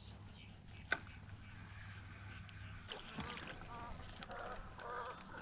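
Low steady hum from the fishing boat's motor, stopping about three seconds in, with a single click near one second; a faint, soft voice follows.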